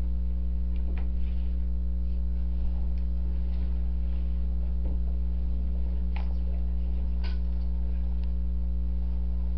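Steady low electrical mains hum with a stack of overtones, the loudest thing throughout. Over it, a few faint rustles and soft clicks of Bible pages being leafed through.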